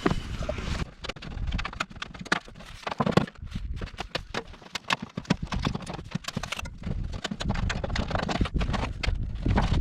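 Irregular clicks and knocks of sheet-metal chimney flashing being bent, trimmed and worked into place under the roofing, over a low rumble.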